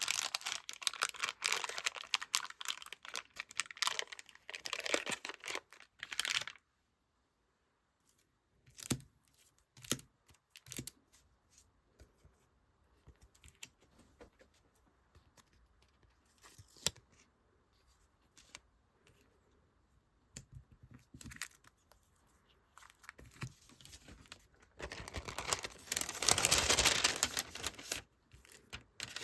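Crinkling and rustling of plastic and paper packaging as stickers are handled and packed, with occasional tearing. Heavy crinkling at the start and again near the end, with scattered light taps and clicks in between and a short stretch of dead silence about seven seconds in.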